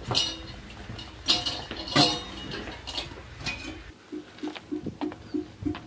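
Metal dishes and utensils clinking, with several sharp clinks in the first three seconds. After that comes a run of short, low blips, about three a second.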